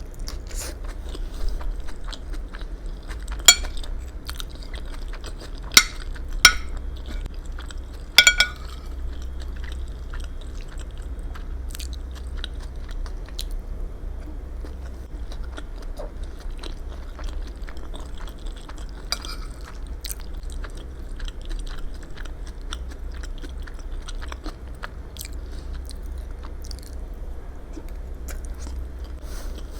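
Close-up chewing and mouth sounds of someone eating, over a steady low hum. Four sharp, ringing clinks stand out, about 3.5, 6 and 8 seconds in.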